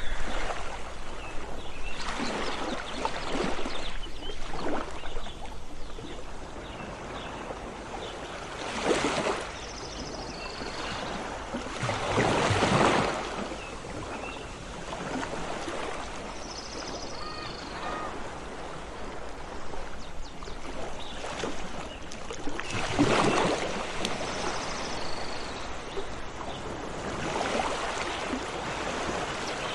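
Sea waves washing in and drawing back in repeated surges, each swelling and fading over a second or two, with a few short high bird calls between them.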